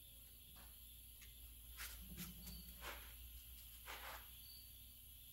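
Near silence broken by a few faint, short metallic scrapes and clicks, about five between two and four seconds in, as a hand tap and its wrench are worked and handled in a freshly threaded bolt hole.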